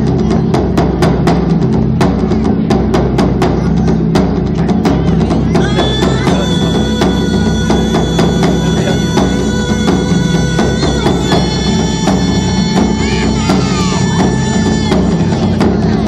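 Music with a quick, steady drumbeat. A layer of held, sustained tones comes in about six seconds in and drops out about fifteen seconds in.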